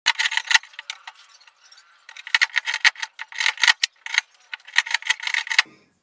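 Knife blade scraping and chipping at hardened gypsum plaster: rapid runs of scratchy clicks in three spells, stopping shortly before the end.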